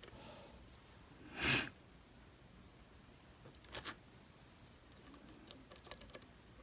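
A single short, sharp sniff about a second and a half in, followed by a few faint, small clicks.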